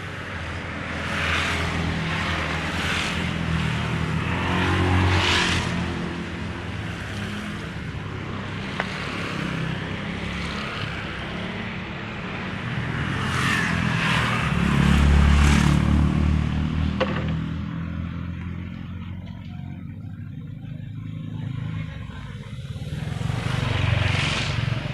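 Road traffic going past: vehicles swell up and fade away three times, the loudest pass about two-thirds of the way through, over a steady rumble and hiss of traffic.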